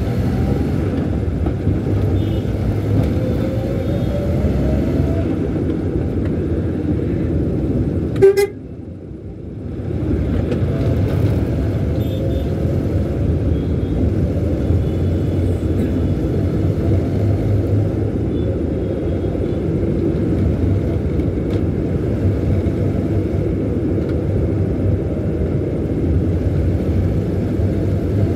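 Steady engine and road noise inside a moving car's cabin, the engine note rising as it picks up speed in the first few seconds. About eight seconds in a car horn gives one short beep, and the noise drops away for about a second and a half before coming back.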